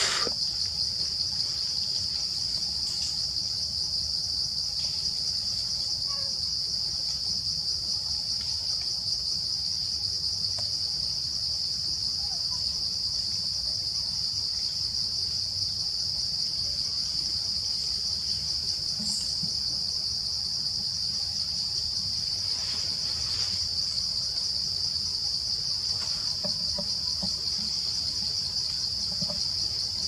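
Insect chorus: a steady, unbroken high-pitched drone that runs on without a pause.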